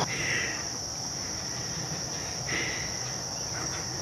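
Steady high-pitched chorus of insects in the woods, with a couple of brief, fainter sounds near the start and about halfway through.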